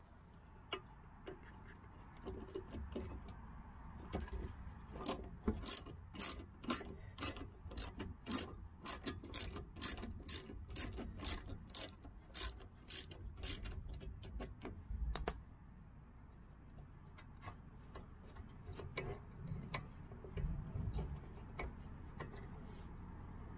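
Socket ratchet clicking about twice a second as it backs out the brake hose bolt on the caliper. The clicking stops about fifteen seconds in, followed by fainter scattered ticks and handling noise.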